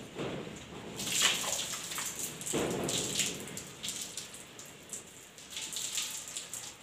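Water poured from a plastic mug over a head of long hair and splashing and streaming onto a concrete floor, in several uneven splashes, the strongest about a second in and again around three seconds in.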